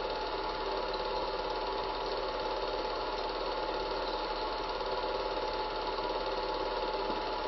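Steady mechanical whirr of a cine film projector running, with a low mains hum beneath it.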